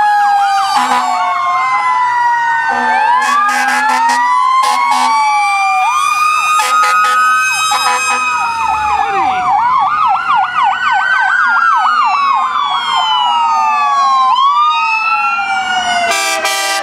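Several sirens from a passing fire engine, police car and ambulance motorcade sound at once: slow wails gliding up and down overlap with fast yelps. Short horn blasts come now and then, with a longer one near the end.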